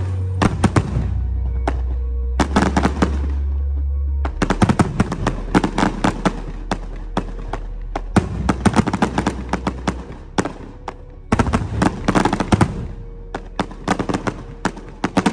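Fireworks display: gold crackling shells bursting in waves of rapid, dense crackle lasting a second or three each, with short lulls between them. Music with low sustained bass notes plays underneath.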